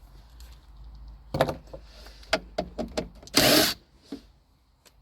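Clicks and knocks of a Genie garage door opener's parts being handled, then a loud burst of noise lasting about half a second near three and a half seconds in.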